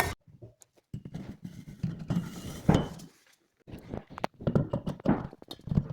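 Irregular metallic clinks and knocks of steel spiral-staircase parts being handled and worked together, with short pauses between them.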